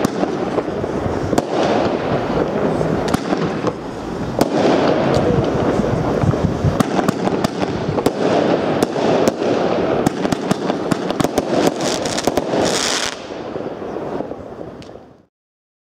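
Comet 'Kraft Protz / Iron Heat' firework going off: a dense run of crackling and sharp bangs that thins out about thirteen seconds in and stops abruptly near the end.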